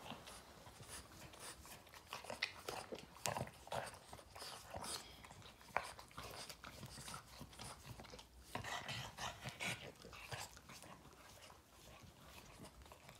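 Boston terrier licking a person's hand and fingers: quick, wet tongue smacks and slurps, over and over at an irregular pace.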